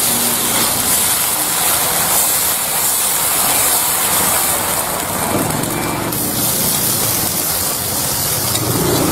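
Batter sizzling with a steady hiss in the hot cups of a khanom khrok (Thai coconut pancake) pan as more batter is poured in.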